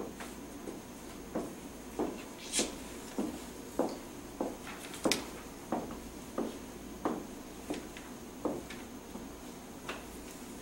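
Footsteps on a hard floor: about a dozen evenly paced steps, roughly three every two seconds, a few of them sharper, over a faint steady hiss.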